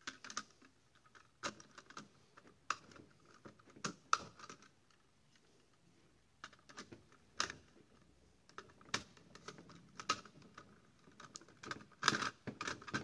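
Scattered clicks and light knocks of hands fitting a viewfinder onto a Mamiya RZ67 medium-format camera body, with a quick run of clicks near the end.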